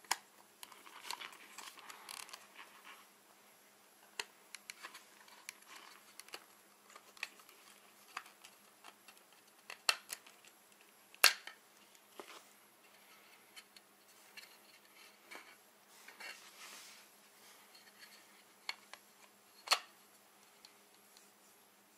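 Plastic clicks and snaps from 100% Armega motocross goggles as the lens is worked out of the frame and a clear one fitted, over light handling rustle. The sharpest snaps come about halfway through and again near the end.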